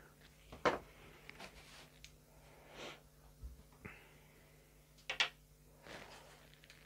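Thin walnut veneer strips being handled and laid on a wooden workbench: soft rustles and light wooden taps, with a sharper knock under a second in and a louder double knock about five seconds in.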